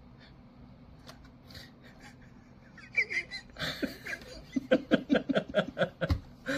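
An adult laughing: a breathy burst a little past halfway, then quick, rhythmic 'ha-ha' pulses, about five a second.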